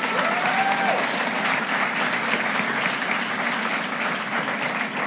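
Live audience applauding, with one voice cheering in a rising and falling whoop in the first second.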